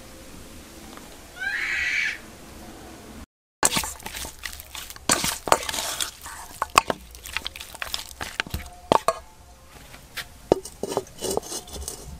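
A metal spoon clinking and scraping against a stainless steel bowl in irregular strokes while raw pork rib pieces are stirred with seasoning. A brief high call is heard about one and a half seconds in, before the clinking begins.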